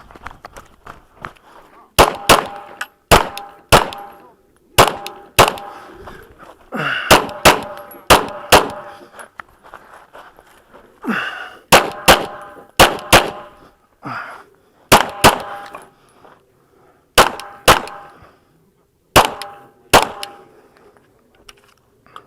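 Glock 19 9mm pistol fired in quick pairs, about ten double shots with a pause of a few seconds midway, each shot followed by a metallic ring from steel targets.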